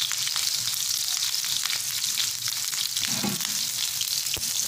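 Sliced red onion frying in hot oil with mustard seeds in a non-stick frying pan: a steady sizzle with scattered crackles, and a light knock near the end.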